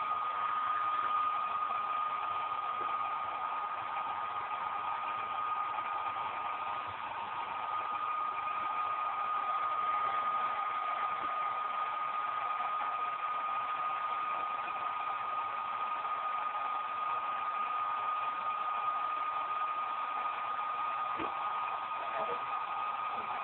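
Hair dryer running steadily, a continuous rush of air with a steady high motor whine, blowing onto a hot spot of a computer power supply to heat it.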